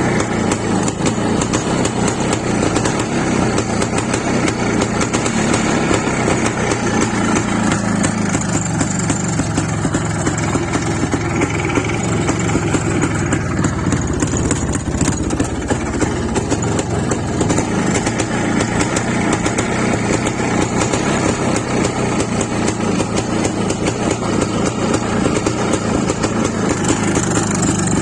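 IZH Planeta motorcycle's two-stroke single-cylinder engine running steadily at idle, with a freshly replaced gasket between cylinder head and cylinder that was fitted to cure a whistle there.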